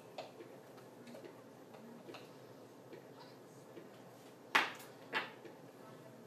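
Light clicks and taps of a metal measuring spoon and a spice container as cinnamon is measured out over a mixing bowl, with two sharper clicks about half a second apart near the end.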